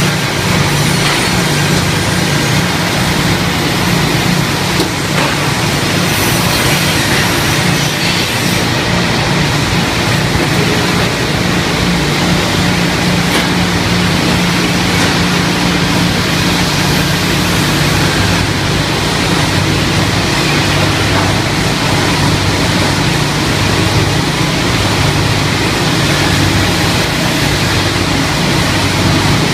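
Pallet board ripping machine running steadily: a loud, even machine noise with a low hum underneath.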